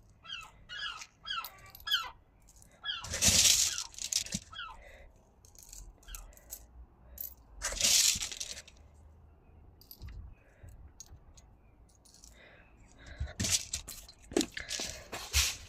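Small pieces of clear glass clinking and rattling together as they are handled, with a few loud rushing noises in between.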